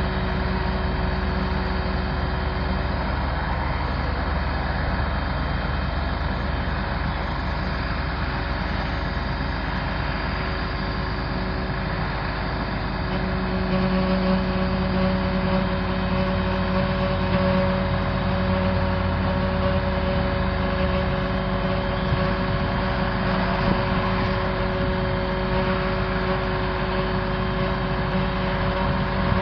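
Six-cylinder turbo diesel engine of a 1992 Simon-Duplex ladder truck running steadily. About halfway through it gets slightly louder and a steady hum comes up stronger.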